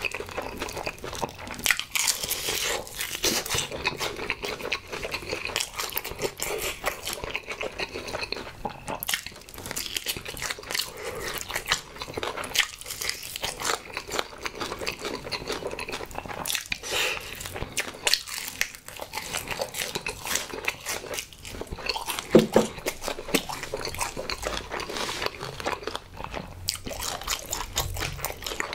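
Close-up chewing of a crispy fried honey chicken drumstick: crunchy bites and wet, smacking mouth sounds. A short low hum about three quarters of the way through.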